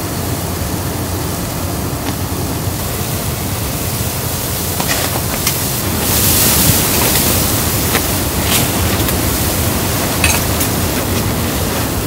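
Steady rushing of blizzard wind around the tent, swelling a little after the middle, with a few light clicks and knocks of camp cookware on a table.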